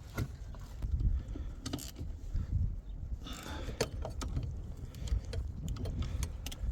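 Scattered clicks and knocks of hands and tools at work on a car's wheel-bearing assembly, with a brief scraping rub about halfway through, over a steady low rumble.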